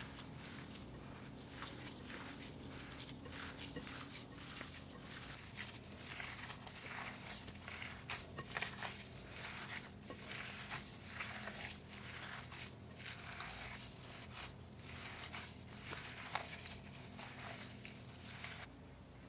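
Gloved hands kneading and squeezing raw ground beef mixed with egg and breadcrumbs in a glass bowl: soft, wet squelching strokes, about two a second, stopping near the end.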